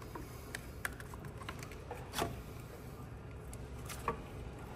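Plastic wiring-harness connectors being handled and pushed together on a motorcycle's engine computer and fuel-tuning module: a handful of light, scattered clicks and taps, the loudest a little past two seconds in, over a low steady hum.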